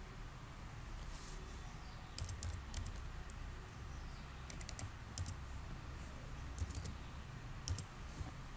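Keystrokes on a computer keyboard, typing in a string of digits in short irregular runs of clicks starting about two seconds in, over a faint steady low hum.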